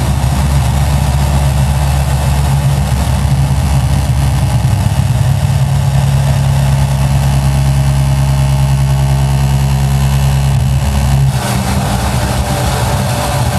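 Loud, steady low drone with a dense, engine-like hum. Its sound changes abruptly about eleven seconds in, becoming thinner in the bass and brighter.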